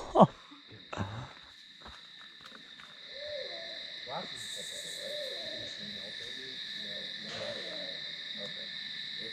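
Night insects chirring in a steady, high chorus that comes up about three seconds in, with faint wavering lower calls beneath it.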